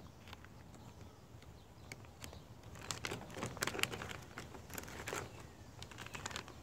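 A Big Bite Baits plastic soft-bait package crinkling and crackling as it is handled and bent, in scattered sharp crackles that are busiest around the middle.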